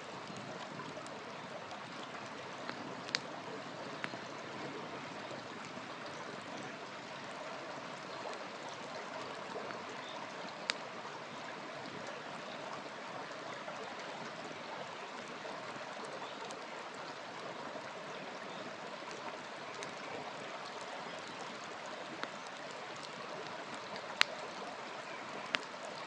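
Wood campfire burning, a steady rushing hiss under a handful of sharp pops and cracks from the burning wood, the loudest near the end.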